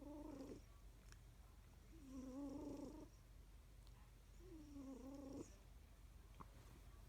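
Faint snoring purr of a sleeping cat: a short pitched, wheezy snore on each breath, three of them about two and a half seconds apart.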